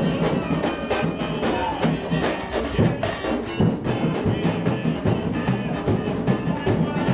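Samba school bateria (drum section) playing a driving samba rhythm: deep bass drum beats under a dense, even patter of snare drums and smaller percussion.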